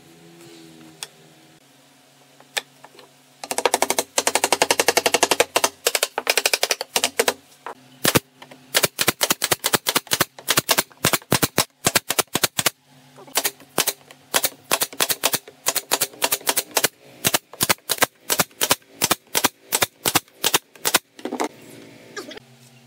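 Pneumatic nail gun firing into pine slats: a rapid burst of shots starting about three and a half seconds in, then a long run of single sharp shots about three a second.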